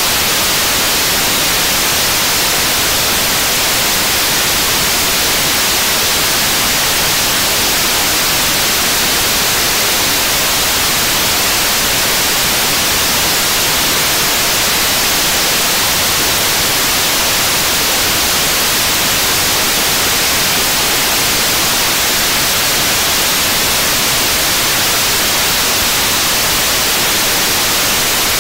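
75-tonne-class kerosene and liquid-oxygen rocket engine firing steadily on a test stand during a hot-fire test: a loud, constant rushing hiss with no change in level.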